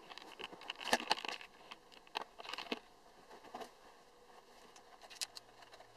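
Handling noise: scattered light clicks, knocks and rustles as a quadcopter and its radio transmitter are picked up and moved, with the sharpest knocks about a second in and about five seconds in.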